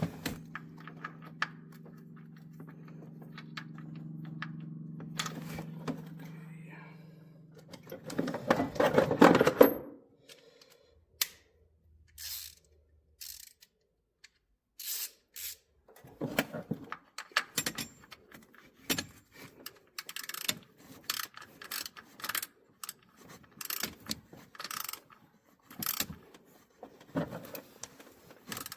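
Metallic clicking and clinking of hand tools working a threaded plug into the timing cover bolt hole, the clicks coming irregularly through the second half; earlier a steady low hum runs for several seconds and cuts off, followed by a short loud clatter about eight seconds in.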